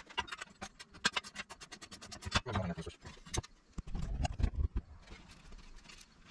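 Black sheet-metal heat shield panels of a CTS intake being handled and pressed together on a wooden workbench: a fast run of light metallic clicks and rattles, then a few dull thumps about four seconds in.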